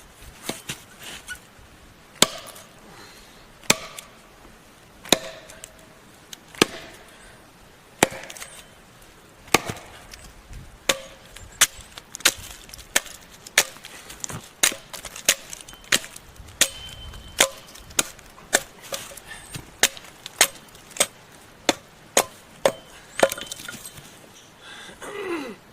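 Axe chopping along a log to shave a flat spot: a steady series of sharp chops into wood, about one every second and a half at first, then quicker, nearly two a second, from about halfway.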